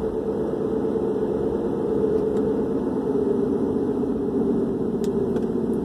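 Steady low droning hum of a running motor or engine, even throughout, with a faint held tone.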